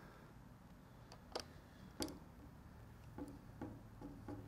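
Faint clicks and ticks from small parts being handled by hand: two sharper clicks about a second and a half and two seconds in, then a quick run of lighter ticks near the end.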